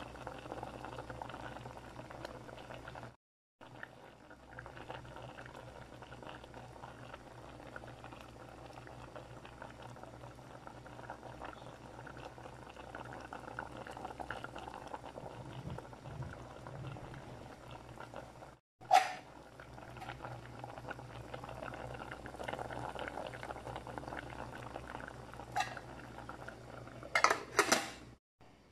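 Coconut-milk broth with tilapia bubbling steadily at a boil in an aluminium pot. A sharp knock about two-thirds of the way in and a few more knocks near the end.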